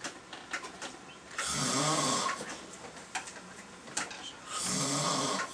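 A sleeping man snoring: two loud, rasping snores about three seconds apart, each just under a second long. A few faint clicks fall between them.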